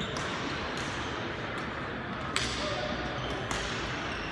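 Badminton hall ambience: a steady murmur of the hall with scattered sharp racket-on-shuttlecock hits, two louder ones past the middle.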